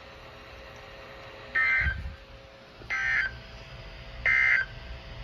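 Three short, buzzy bursts of NOAA Weather Radio SAME data tones, about a second and a half apart, coming through a weather radio's speaker. These are the end-of-message bursts that close an emergency alert broadcast.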